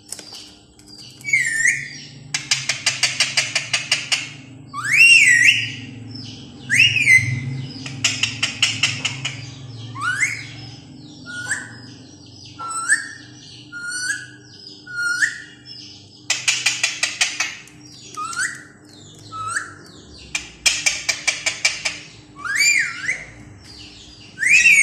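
Pet green parrot calling: short whistles that rise and then drop, one every second or two, alternating with four rapid rattling chatters about a second and a half each.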